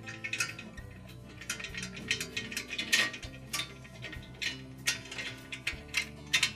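Irregular sharp clicks and taps of hand work with a Phillips screwdriver on the screws holding a range door handle to its brackets, over soft background music.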